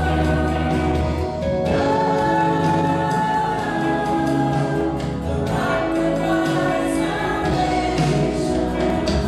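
Live worship band playing a song, with several voices singing together over acoustic and electric guitars, drums and keyboard.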